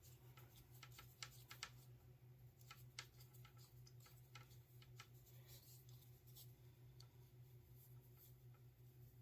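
Near silence: a faint steady low hum with scattered faint small clicks.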